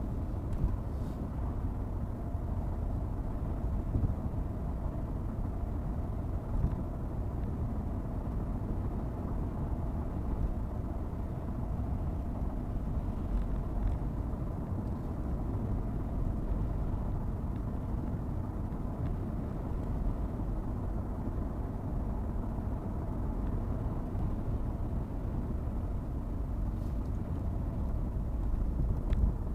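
Car driving at a steady speed: an even, low road-and-engine rumble.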